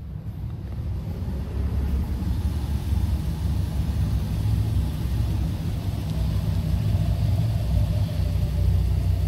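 Low, steady rumble of a car being driven slowly, heard from inside the car.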